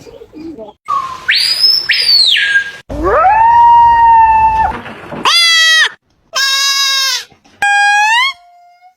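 A string of separate loud animal calls, about five in all, each a pitched cry that rises and then holds or falls, cut off abruptly with short gaps between.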